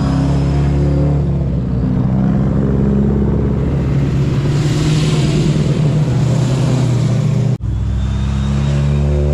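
Sports car engines running loud and accelerating as cars pull away one after another, the engine notes rising. The sound drops out for an instant about three-quarters of the way through, then another engine note climbs.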